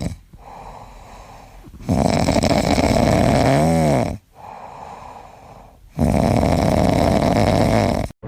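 A pet snoring loudly in slow, rasping breaths, three snores about four seconds apart with quieter breaths between, one with a brief whistling tone that rises and falls.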